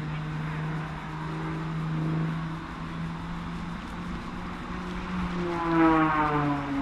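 Extra 330 aerobatic plane's single piston engine and propeller droning, the note wavering slightly; about five and a half seconds in it grows louder and its pitch slides down.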